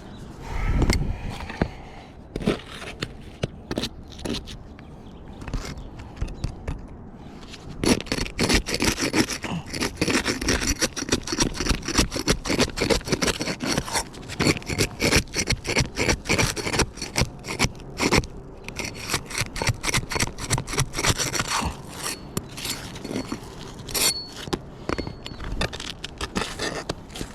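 Repeated scraping on roofing shingles during a repair: a low thump about a second in, a few scattered scrapes, then from about eight seconds in a dense run of quick, rough scraping strokes.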